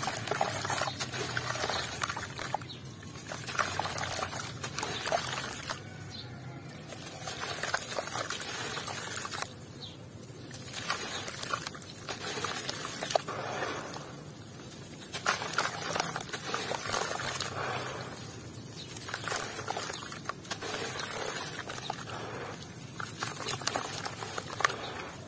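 Lumps of gritty red dirt crumbled by hand into a basin of water: crackling crumbles with grit pattering and trickling into the water and small splashes. It comes in bouts of a few seconds with short pauses between.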